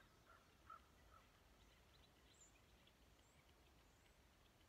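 Near silence, with faint bird calls: a few short notes in the first second and thin, high chirps scattered throughout.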